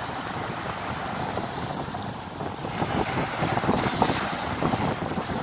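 Wind buffeting the microphone over the wash of small waves breaking on the beach, getting louder about three seconds in.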